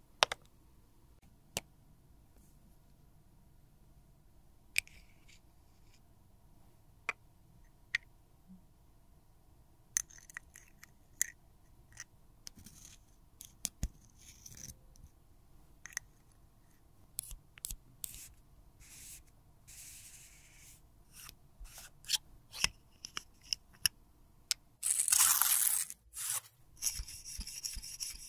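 Spatula scraping and digging lipstick out of a metal lipstick tube: a few sharp clicks and taps at first, then quick scraping strokes from about ten seconds in, growing denser, with one longer, louder rasping stroke near the end.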